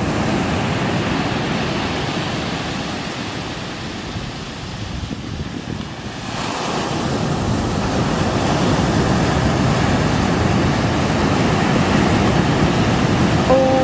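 Surf breaking on a beach, with wind buffeting the microphone. The wash eases about four seconds in and builds again a couple of seconds later.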